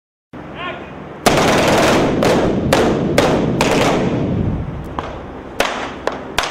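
Staged battle gunfire and effects charges on a film set. A run of about five loud bangs roughly half a second apart begins about a second in, with continuous noise between them, followed by a few scattered sharper bangs near the end.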